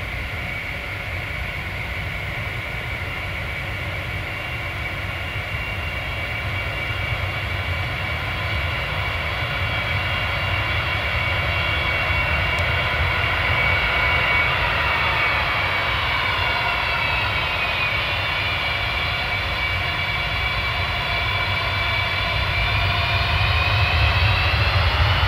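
Antonov An-124-100M's four Progress D-18T turbofan engines whining as the freighter taxis and turns toward the listener, over a deep rumble. The whine is several tones together. It dips in pitch partway through, then rises and grows louder near the end.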